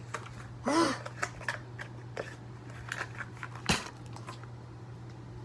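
Small plastic clicks and taps from handling a food coloring bottle and the slime container, with a sharper click near the end, over a steady low hum. There is a brief vocal sound about a second in.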